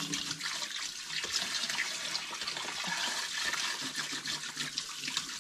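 Tap water running steadily into a sink, splashing as hands are washed under it.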